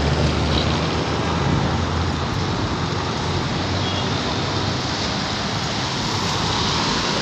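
Road traffic passing on a rain-wet highway: a truck's engine hums close by for the first couple of seconds, over a steady hiss of tyre and road noise.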